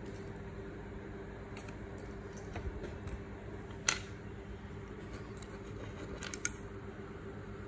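Light sharp clicks and taps of watches and metal bracelets being handled, the loudest about four seconds in and a small cluster about six and a half seconds in, over a steady low room hum.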